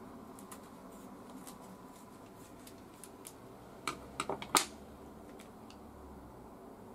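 Faint snips and plastic rustling as a small pair of scissors cuts open a plastic sauce sachet, then a quick run of sharp clicks about four seconds in, the last the loudest, as the metal scissors are put down on the table.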